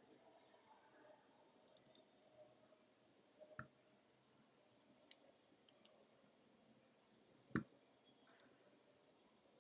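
Near silence with a few sharp clicks, the loudest about seven and a half seconds in and another about three and a half seconds in, with fainter ticks between.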